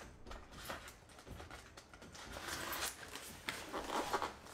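A cardboard box being cut open with a box cutter: irregular scraping strokes and clicks, busiest in the second half.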